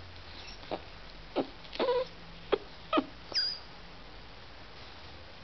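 Dog whimpering and whining in a string of about six short, high-pitched cries over the first three and a half seconds, with one brief squeaky whine near the end of the string, as she fusses over her kibble.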